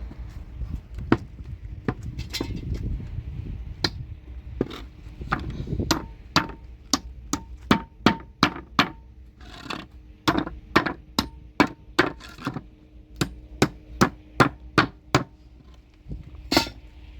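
Hammer blows: a few scattered strikes, then quick runs of two to three blows a second, some with a brief ring, over a low rumble in the first few seconds.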